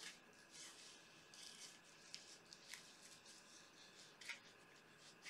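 Near silence, with faint scattered rustles and a few soft ticks.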